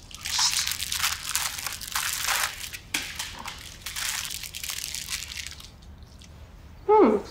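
Pastry crunching and crumbling as it is broken apart by hand, in two spells with a short break between them. A brief voice sound comes near the end.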